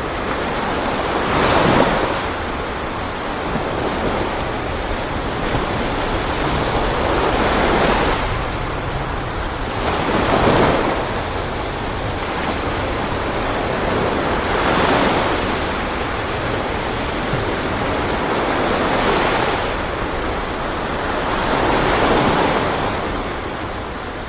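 Sea waves and wind: a steady rush of water noise that swells every few seconds as waves wash past.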